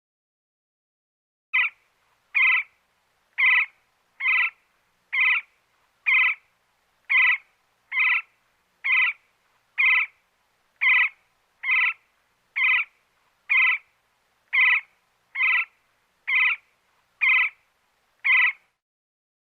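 Woodpecker calling: a short, harsh note repeated at a steady pace of about one a second, nineteen times, starting about a second and a half in and stopping shortly before the end.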